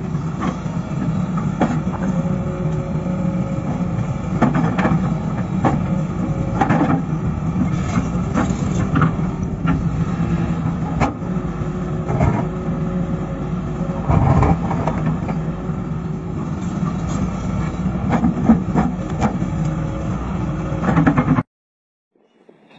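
Hydraulic excavator's diesel engine running steadily under load, with repeated knocks and scrapes as the bucket works against rock. The sound cuts off abruptly near the end.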